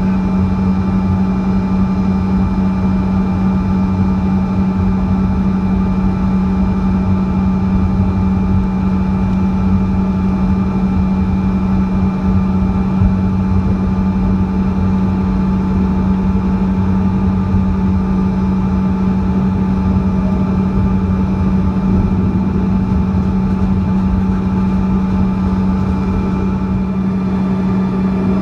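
Steady drone and whine of a Bombardier CRJ-200's rear-mounted General Electric CF34 turbofan engines, heard inside the cabin, with a strong low hum and fixed high tones. Near the end the pitch starts to rise as thrust increases.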